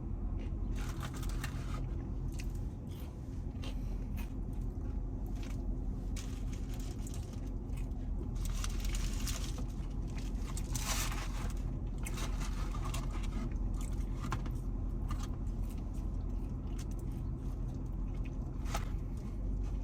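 Eating sounds: chewing, with paper wrapper or bag rustling and scattered small clicks and crackles, the longest rustle about nine to eleven seconds in, over a steady low hum.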